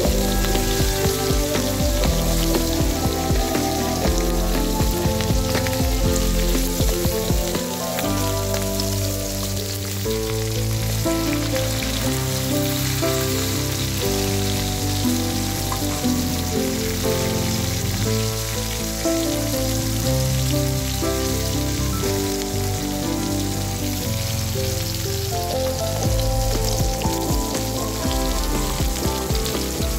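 Climbing perch frying in mustard oil in a wok, a steady sizzle, with background music playing over it.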